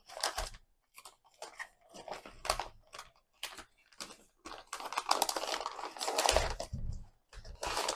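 Thin plastic zip-lock filament storage bag crinkling and rustling as a spool of 3D printer filament is pushed into it and the bag is handled, in irregular crackles that are heaviest about five to seven seconds in.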